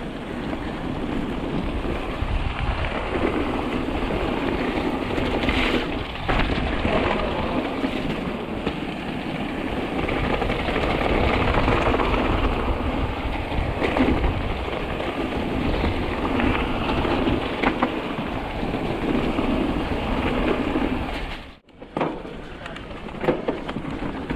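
Mountain bike riding down a trail: a steady rush of wind and tyre noise, with a few sharp knocks from bumps. It cuts out suddenly for a moment near the end.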